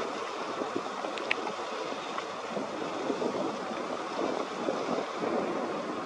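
Wind rushing and gusting over the camera's microphone, an uneven rumbling noise.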